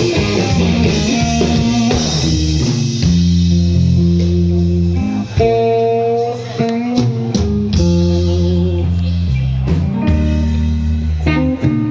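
Live rock band playing an instrumental, blues-tinged passage: an electric guitar melody over held bass notes and a steady drum beat.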